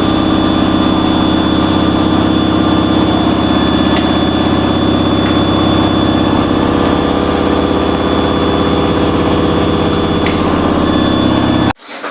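Washing machine running: a loud, steady mechanical hum with a constant whine, cutting off suddenly near the end.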